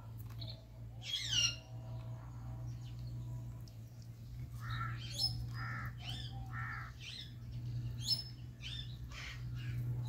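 Indian ringneck and Alexandrine parakeets calling: one loud, falling squawk about a second in, then from about halfway a run of short chattering calls and sharp squawks. A steady low hum runs underneath.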